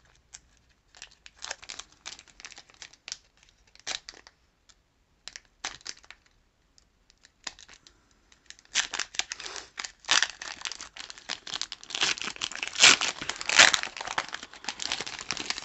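Foil Pokémon booster pack wrapper being handled and torn open: scattered crinkles at first, then from about nine seconds in a dense stretch of crinkling and tearing as the pack comes open.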